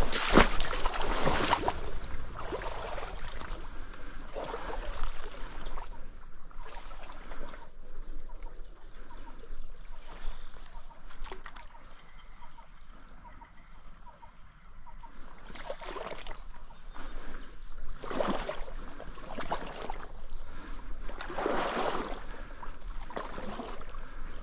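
Wading into a small trout stream: irregular splashing and sloshing of water around the legs over the running stream.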